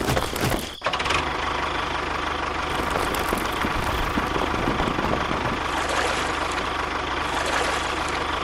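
A small engine idling steadily with a fine, even low pulse. It comes in just before a second in, after a sudden break.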